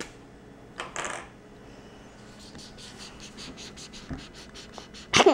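Felt-tip marker scribbling on sketchbook paper: quick, even back-and-forth scratchy strokes, about four or five a second, starting about two seconds in. A brief, loud voice cuts in near the end.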